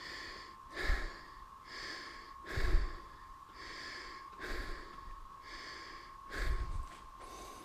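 A man breathing hard close to the microphone, about one breath a second, with a few low thumps. A steady thin tone sits under it throughout.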